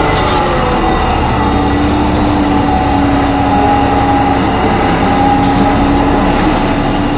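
Inside a New Flyer D40LF transit bus under way: its drivetrain runs with steady whining tones, a lower held tone joining about a second and a half in over a thin high squeal. This is a screech that the uploader puts down to either the brakes or the Voith transmission.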